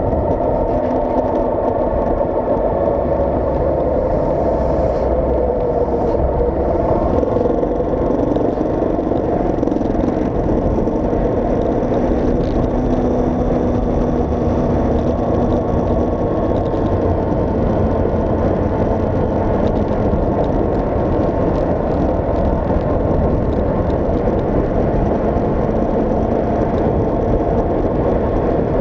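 Steady, loud road noise from a moving vehicle: wind on the microphone mixed with engine and tyre noise. An engine note shifts in pitch during the first several seconds.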